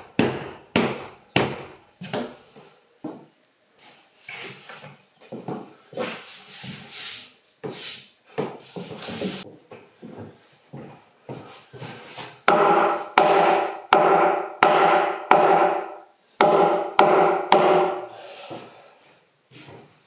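Hammer blows on the log timber framing overhead: irregular knocks at first, then in the second half a run of harder strikes, about two to three a second, each leaving a clear ring.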